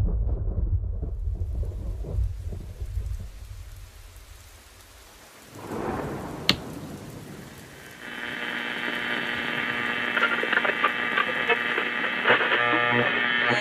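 Thunder rumbling deep and long, fading out over about four seconds. Then a hiss of rain with one sharp crack, and from about eight seconds a steady hum of held tones and static from a portable transistor radio being tuned.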